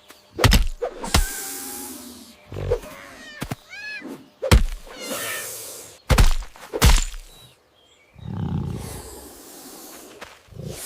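Cartoon action sound effects: a string of sharp thuds and swishes, short chirps about three and a half seconds in, and a low rumbling noise near the end.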